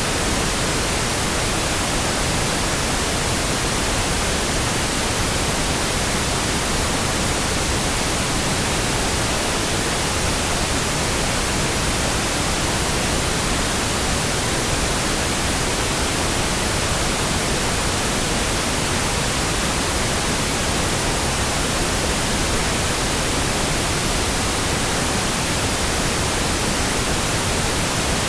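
Steady pink noise: an even, unchanging hiss.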